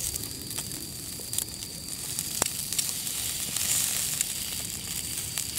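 Chicken thigh pieces and a thick rolled omelette sizzling over charcoal on a small tabletop grill, a steady hiss with light crackling. There is a sharp click about two and a half seconds in.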